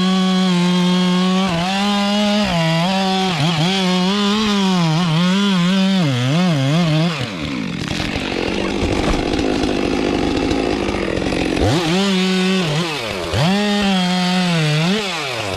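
Two-stroke chainsaw running at high revs while cutting wood, its engine note repeatedly sagging and recovering. It drops to a rougher, lower sound for a few seconds in the middle, then revs up and cuts again.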